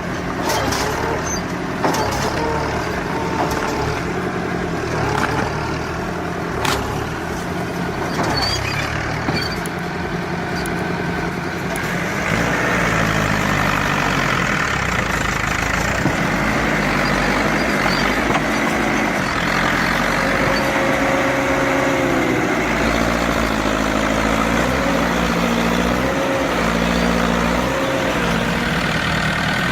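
Massey Ferguson 265 tractor's diesel engine working under load, its pitch rising and falling repeatedly as the load changes. A few sharp knocks come in the first part.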